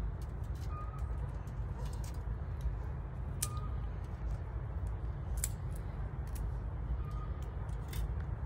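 Outdoor ambience: a steady low rumble, with a few sharp clicks and short high chirps every few seconds.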